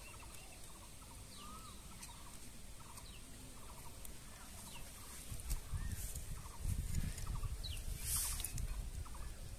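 Chickens clucking softly in the background, with small birds chirping, in a quiet outdoor setting. A low rumble rises in the second half, with a brief hiss about eight seconds in.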